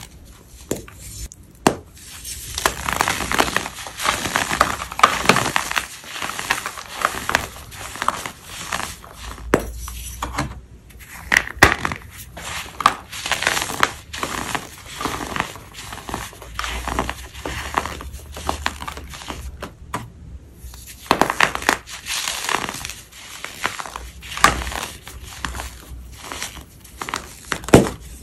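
Crumbly white powder blocks being crushed and crumbled: a dense run of crisp, crackling crunches, with two short pauses, one about a third of the way in and one around two-thirds through.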